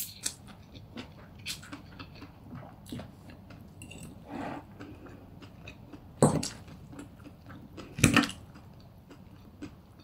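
Close-miked eating of glass noodles (funchoza): wet chewing and mouth clicks, with a fork clinking and scraping on the plate as noodles are twirled. Two louder knocks come about six and eight seconds in.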